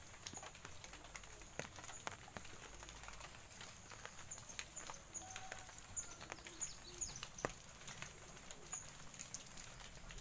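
Faint chirps and quick falling whistles of small birds, with scattered sharp taps from walking along a wet path.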